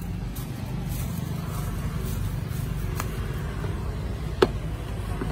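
Low, steady rumble of a motor-vehicle engine, with a few light clicks and one sharper click about four and a half seconds in.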